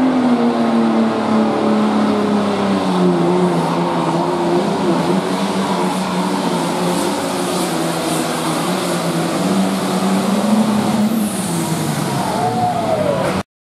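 Light pro stock pulling tractor's diesel engine running hard under load as it drags the weight sled down the track, its pitch wavering through the pull. Near the end the engine note drops away as the pull finishes.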